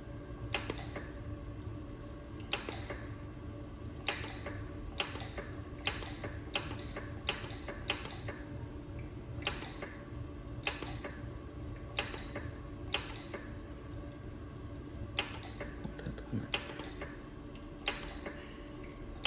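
A jewelry laser welder firing single pulses: about sixteen sharp snapping clicks at uneven intervals, one every second or so. Under them the machine's cooling system hums steadily.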